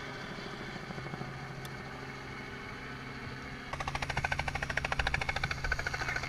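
Small helicopter: a steady engine and rotor hum, then, about four seconds in, a louder rapid rotor chop of about a dozen beats a second as it comes in low to land close by.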